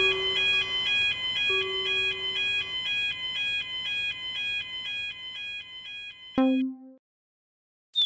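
Japanese railroad crossing warning bell ringing its electronic two-note 'kan-kan' about twice a second, fading gradually. A low held tone sounds under it for the first few seconds. The bell stops with a click and a short low note, followed by silence.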